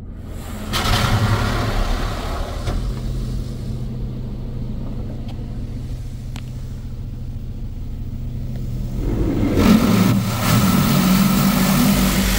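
High-pressure spray of a D&S IQ Genius Series touch-free car wash hitting the car, heard from inside the cabin, over a steady low hum. The spray is loud about a second in, eases off in the middle, and comes back louder near the end as water sheets over the windshield.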